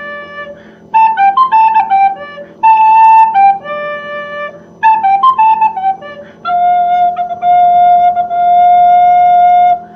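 A solo flute-like wind instrument plays a melody of short notes, then holds one long steady note through the last few seconds, over a faint low hum.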